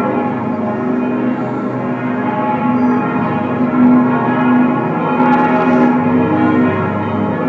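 Several church bells ringing together in a full peal, their overlapping tones struck again and again and hanging on without a pause.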